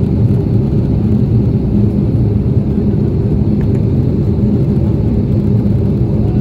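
Steady low rumble of cabin noise inside an Airbus A330-300 airliner in flight, from engine and airflow noise, heard from a window seat.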